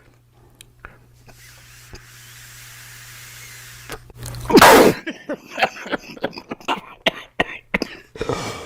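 A long, faint draw on a vape, then a loud cough about four and a half seconds in, followed by a run of short, spluttering coughs.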